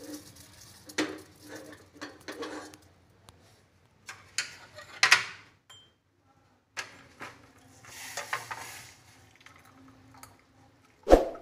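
Stainless steel saucepan, tea strainer and glass cups knocking and clattering as the pan of boiled herbal tea is handled and set up for straining, with scattered short clinks and one loud metal clank near the end.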